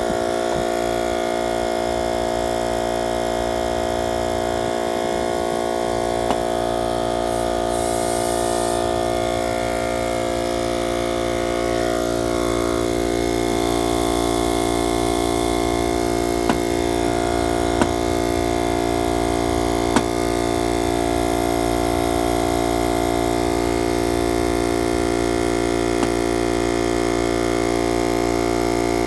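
Husky portable tire inflator's small electric compressor running steadily, pumping air into a yard cart tire, with a few faint clicks.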